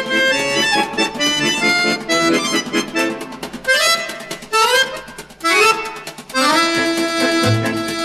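Instrumental music led by an accordion. In the middle come three quick rising sweeps, and then a new passage with held notes and a low bass beat starts near the end.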